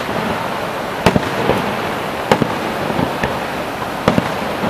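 Aerial fireworks shells bursting: a string of about seven sharp bangs, some in close pairs, over steady background noise.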